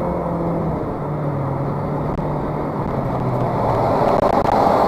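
Car engine and tyre road noise heard from inside the cabin while driving at motorway speed. The engine note drops in pitch about a second in and fades out, while the road noise grows louder near the end.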